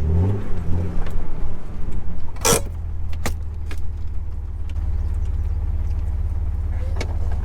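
Jeep Wrangler TJ engine running as the Jeep is eased into position, with a brief rise and fall in revs at the start, then settling to a steady idle. A few sharp clicks, the loudest about two and a half seconds in.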